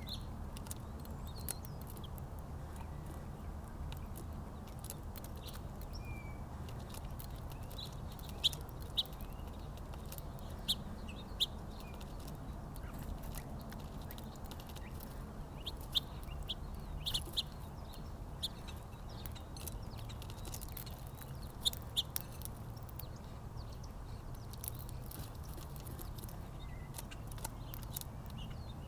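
Small birds giving short, scattered chirps, a few at a time in loose clusters, over a steady low background hum.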